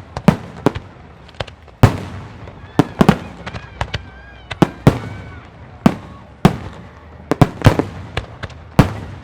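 Aerial firework shells bursting in a rapid, irregular barrage of sharp bangs, each trailing off in an echo, the loudest about two seconds in.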